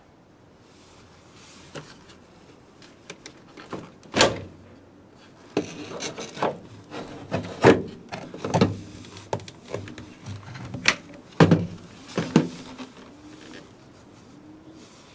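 Plastic air filter housing of a Peugeot 206 being worked loose and lifted out of the engine bay: irregular knocks and scraping of plastic against plastic and rubber ducting, starting a few seconds in.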